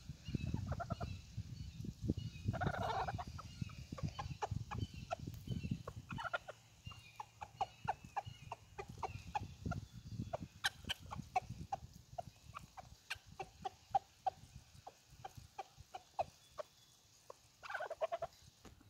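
Chickens, hens and a rooster, clucking in short calls while they feed, with many quick pecking taps on the ground.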